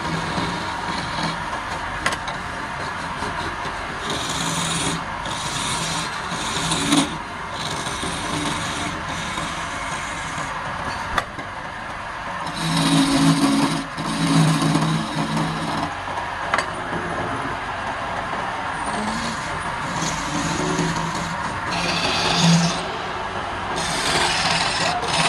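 Wood lathe turning a wooden spindle while a hand-held chisel cuts into it: a steady scraping hiss of the blade shaving the spinning wood, which grows louder in several cutting passes.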